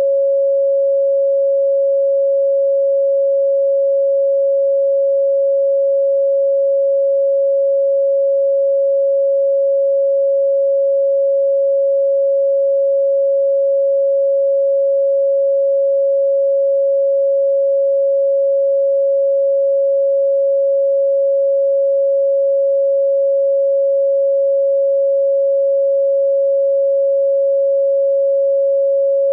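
Steady pure sine tone at about 552 Hz, the frequency listed for Bai Qian (Cynanchum root), held unbroken. A second, much higher steady tone sounds alongside it.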